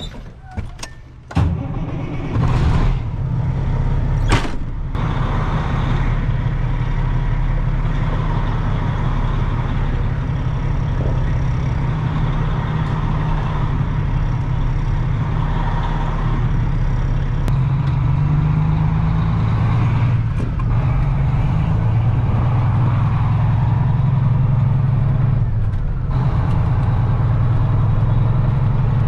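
A few knocks, then a heavy vehicle engine running steadily from about a second and a half in.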